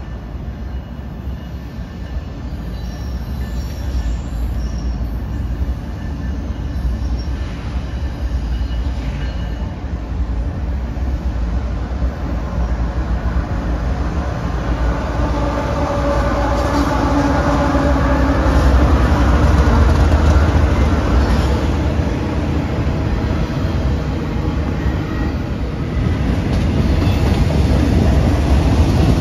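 A diesel freight train comes on and passes, led by GE ES44AC-H (GEVO) locomotives: a deep engine drone and the rumble of wheels on rail build to their loudest about two-thirds of the way as the lead units go by. The sound swells again near the end as the mid-train GE ES40DC distributed-power locomotive arrives.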